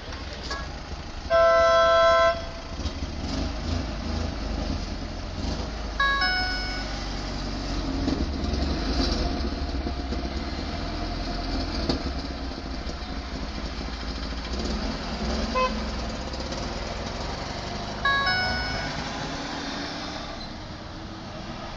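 Car horns honking in stopped street traffic: one loud honk of about a second, then two shorter honks about 6 and 18 seconds in, over a steady low engine rumble.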